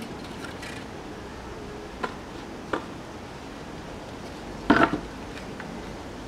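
Pieces of wood knocking against each other as they are handled and set in place: two light knocks about two seconds in, then a louder clatter of several knocks a little before five seconds in.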